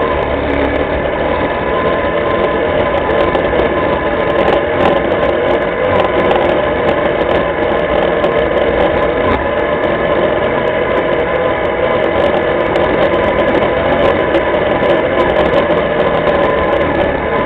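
Linhai ATV engine running steadily while the quad rides along a muddy, snowy track, picked up close by a camera mounted on the machine. Scattered light ticks sound over the steady engine note.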